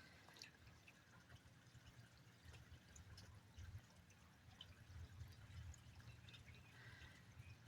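Faint rain dripping, with scattered drops ticking over a faint low rumble.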